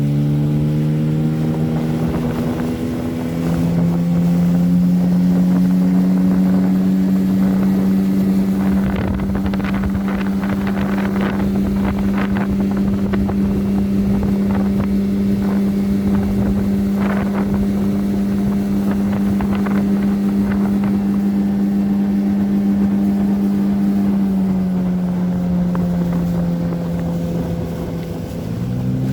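Small 9.9 hp outboard motor driving an inflatable boat at speed: its pitch climbs a few seconds in and holds high and steady, then drops back in two steps near the end and starts to rise again. Scattered sharp knocks in the middle, with wind on the microphone.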